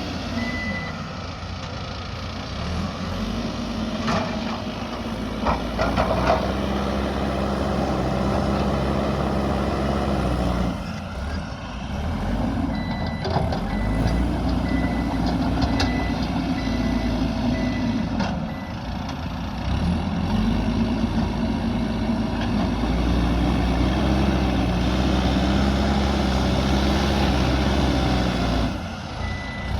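Backhoe loader's diesel engine working, its pitch rising and falling with the load, while its reversing alarm beeps in runs at the start, in the middle and near the end. A few sharp knocks come about four to six seconds in.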